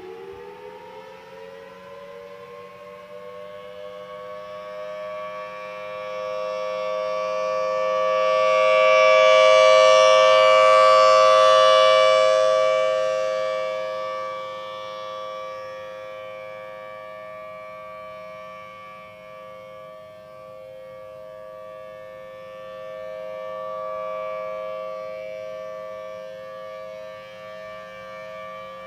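Federal Signal Thunderbolt 1000T outdoor warning siren sounding its monthly test. It has just wound up to full pitch and holds a steady two-note wail. The wail swells loudest about a third of the way in and again, less strongly, near the end as the rotating head sweeps past.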